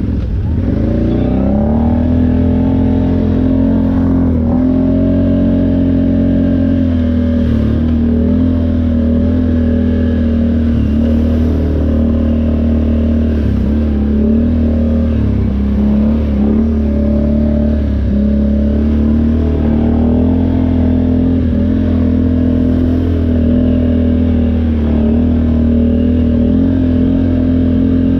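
ATV engine running under way at a fairly steady speed, its pitch dipping and recovering slightly every few seconds with small throttle changes.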